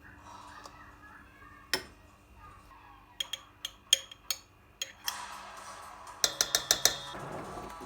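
Sharp clicks and taps, a few spaced apart, then a quick run of about seven taps in a second near the end, over a steady soft hiss.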